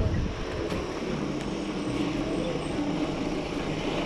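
Steady low rumble of wind on a handlebar-mounted action camera's microphone during a bicycle ride, with the drone of a truck engine running close alongside.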